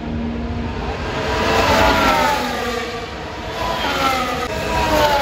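Formula 1 cars' turbocharged V6 engines passing at speed, the engine pitch dropping as each goes by. Two pass-bys, about three seconds apart.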